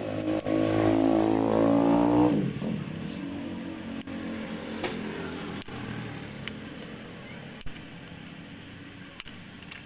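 A motor vehicle's engine revving with its pitch rising, then dropping quickly a little over two seconds in as it passes by. After that, a steady low hum and a few sharp clicks.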